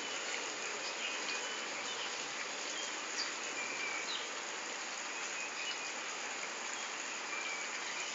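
Steady outdoor background ambience: an even hiss with a few faint, short chirps now and then.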